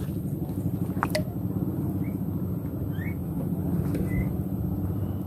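A small engine running steadily with a fast, even pulse. There is a sharp click about a second in and a few faint short chirps.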